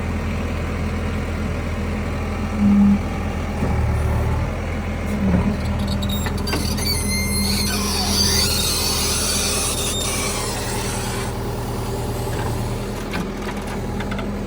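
JCB 3DX backhoe loader's diesel engine running steadily, picking up under load about four seconds in, with a short loud tone just before. From about six seconds in, high squealing and hissing from the working machine lasts several seconds.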